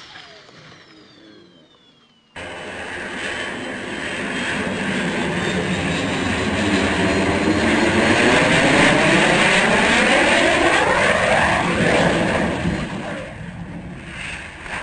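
Twin micro turbine engines of a radio-controlled model jet flying past: a steady jet whine that builds for several seconds, is loudest about halfway through and fades near the end, with pitch lines that seem to slide as it passes. It starts suddenly about two seconds in, after a faint falling whine.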